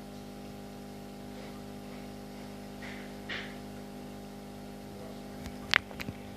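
Steady electrical hum of an aquarium's internal filter pump running, with a few sharp knocks near the end, one much louder than the rest.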